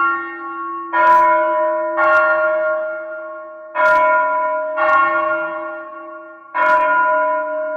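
Church tower bells ringing: five strikes about one to two seconds apart, at irregular intervals. The bells are of different pitch, and each keeps humming and ringing on under the next strike.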